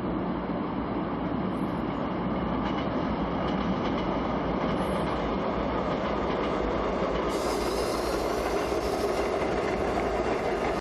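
Seoul Subway Line 2 train running steadily on the track. About seven seconds in, the sound brightens with more hiss.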